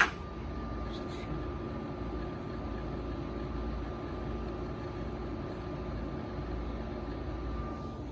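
Air conditioner running with a steady hum, a low rumble and a faint whine, after one sharp click right at the start.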